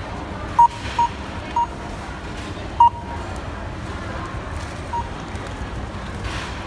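Self-checkout machine's scanner beeping: four short beeps of the same pitch in the first three seconds and a fainter one about five seconds in, over steady background noise.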